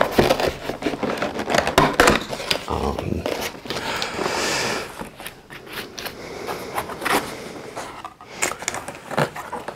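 Large cardboard box being handled and opened: flaps and panels scraping and knocking, with crinkling and light thuds as the box is tipped over and set down, and a longer sliding scrape about four seconds in.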